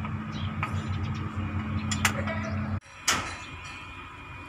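Metal hand tools clinking against an excavator's hydraulic control valve and hose fittings, over a steady low machine hum. The hum cuts off abruptly about three seconds in, and a sharp click follows.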